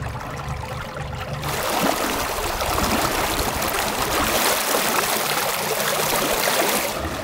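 Propeller wash from an ePropulsion Spirit 1.0 Plus electric outboard pushing a dinghy: water rushing and churning in the wake. It starts abruptly about a second and a half in, after a low steady hum.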